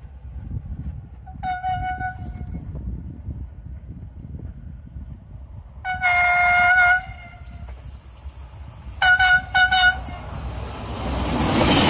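Locomotive horn on an approaching passenger train: a blast about a second and a half in, a louder one-second blast near six seconds, then two quick toots around nine seconds, over a low rumble. A rising rush of noise builds near the end as the train draws close.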